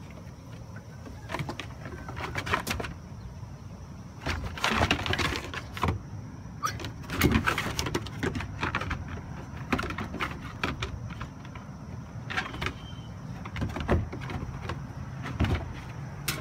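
Two dogs play-fighting on a wooden deck: a run of knocks, scrapes and scuffles from paws and bodies on the boards, busiest about four to six seconds in and again around seven to eight seconds in.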